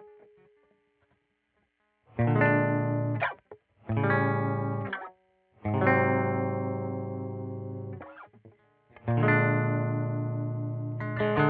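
Squier Vintage Modified Jaguar electric guitar through an amplifier, strumming four separate chords with short pauses between them, each left to ring before being stopped; the third rings longest and the last is still sounding at the end.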